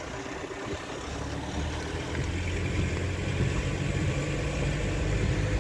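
Car engine and tyre noise heard from inside the cabin while driving: a steady low hum that grows gradually louder.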